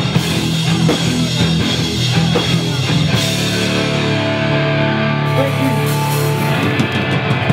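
Live punk rock band playing loud: distorted electric guitars, bass and a drum kit. About three seconds in the drumming thins out while a chord rings on, and cymbals crash again near the end.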